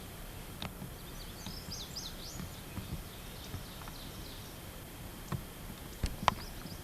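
Outdoor field ambience: a steady background hiss with a bird giving a quick series of high chirps about a second and a half in. Near the end come two sharp knocks close together, the loudest sounds.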